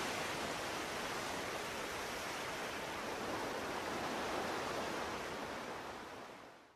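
Steady hiss of noise, even across low and high pitches, fading out near the end.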